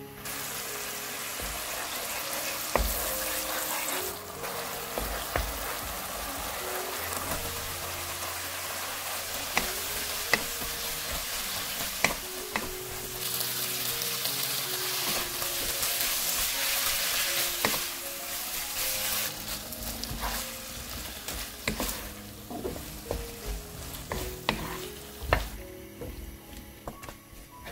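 Garlic scapes in a gochujang sauce sizzling as they are stir-fried in a frying pan, with sharp knocks of the stirring utensil against the pan. The sizzle thins out over the last several seconds while the knocks carry on.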